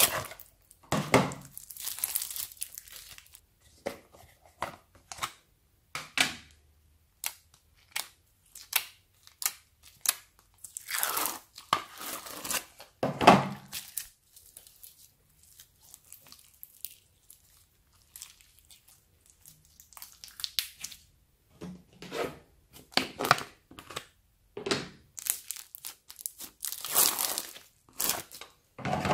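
Hands squeezing, folding and pulling bead-filled slime: crackly squishes and crunches that come in irregular clusters, with a quieter few seconds midway.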